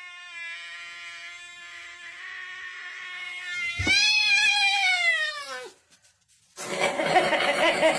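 A cat yowling: one long, steady, drawn-out note, then a louder yowl that rises and falls in pitch and cuts off about six seconds in. Near the end a different pulsing, wavering sound starts.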